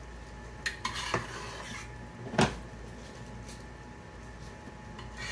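Cookware clattering as sauce is spooned out of a pan: a knock and scraping a little under a second in, then a single sharp knock about two and a half seconds in.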